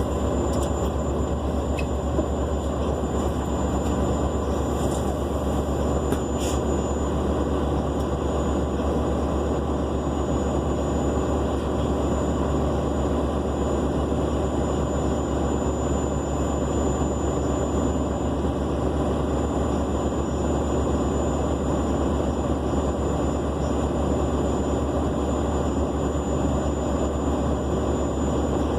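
Nova Bus LFSA articulated city bus under way, heard on board: a dense, steady engine and road rumble with a thin, continuous high-pitched whine over it.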